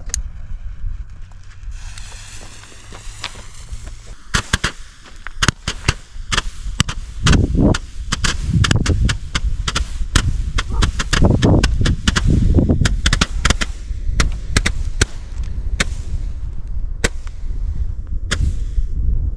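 A fireworks battery of star balls (Leuchtkugelbatterie) firing: a fuse hisses for a couple of seconds, then the cake launches shot after shot as a long, irregular string of sharp cracks and thumps, about one or two a second, heaviest in the middle and still firing at the end.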